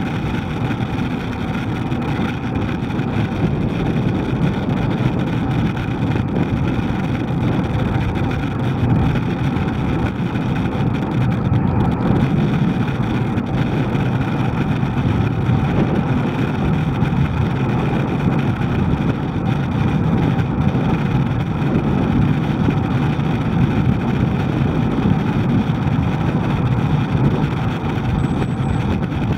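Steady rushing road and traffic noise, with no breaks or sudden sounds.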